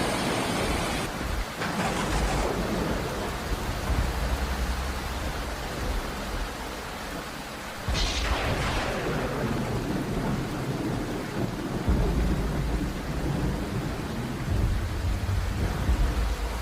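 Heavy rain falling steadily with thunder rumbling, and a sudden crack of thunder about eight seconds in.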